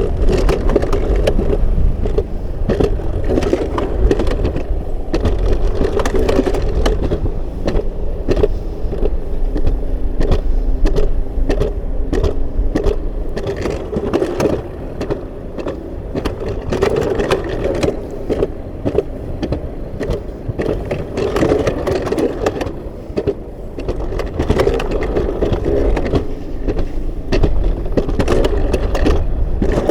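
Alpine coaster sled running along its rails: a steady rumble with a constant rattle of clicks and knocks.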